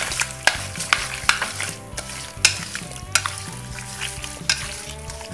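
Raw chicken pieces being mixed by hand with a fish-sauce marinade in a metal bowl: wet squelching with irregular sharp smacks, about one or two a second.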